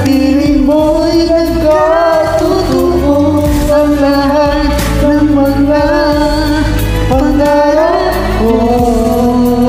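Karaoke duet singing over a ballad backing track, with a woman's voice most prominent.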